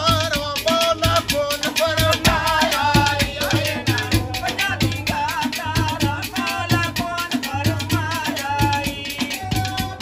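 Punjabi folk music for mahiye singing: a steady drum beat under a wavering melody line.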